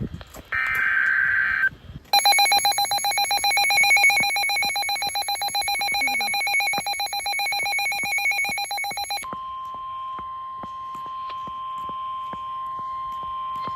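Emergency Alert System tones on NOAA Weather Radio, ahead of a severe thunderstorm warning. It opens with the last burst of the warbling digital SAME header, lasting about a second. Then comes a harsh, buzzing, pulsing alert tone for about seven seconds, and at about nine seconds in it switches to the steady 1050 Hz NOAA Weather Radio warning alarm tone.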